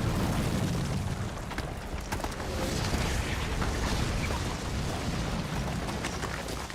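Heavy road-construction machinery running: a loud, steady rumble with scattered clicks and knocks.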